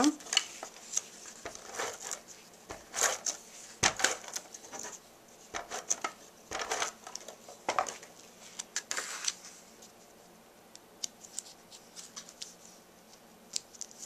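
Card stock and paper being handled by hand: scattered light taps, clicks and short rustles as a paper cutout is pressed onto a folded card and the card is lifted and folded. The sounds thin out after about ten seconds to a few soft ticks.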